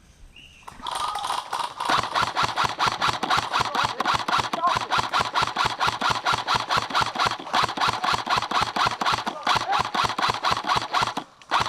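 A loud, fast, even mechanical pulsing, about five beats a second, starting about a second in and stopping shortly before the end.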